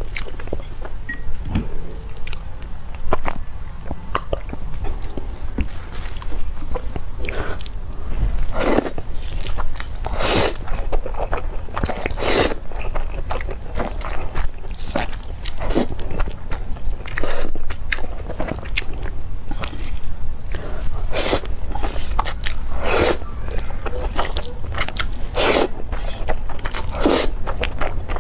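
Close-miked eating: a person biting and chewing food, with crunches and many short mouth sounds one after another.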